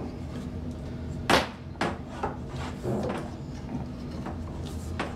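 Handheld PEX tubing cutter snapping shut through blue PEX pipe: one sharp snap a little over a second in, then a few lighter clicks and knocks of the tool and pipe.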